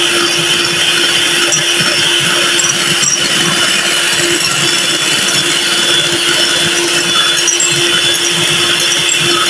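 Electric hand mixer running at a steady speed with a constant hum, its twin beaters whisking a runny egg, sugar and oil cake batter in a glass bowl.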